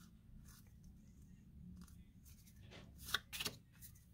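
Pokémon trading cards being handled: quiet sliding and flicking of cards, with a few short, sharp papery flicks about three seconds in.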